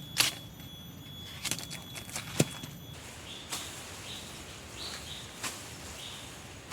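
A handful of sharp knocks and snaps scattered through, the loudest about a quarter-second in and near the middle, with faint short chirps in the second half.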